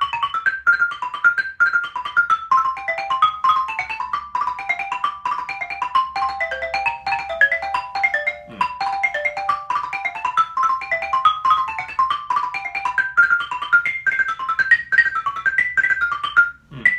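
Xylophone played with two mallets in a fast, unbroken stream of single notes: improvised broken chords, with the chord tones moved around and inverted as they run up and down the bars. The notes stop briefly near the end.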